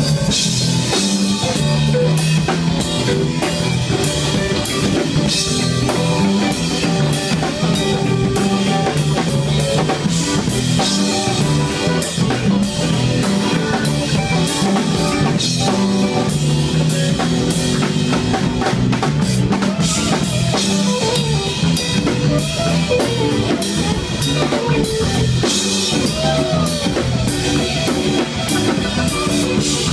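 Funk band playing live: an electric bass line over a steady drum-kit groove, with electric guitar.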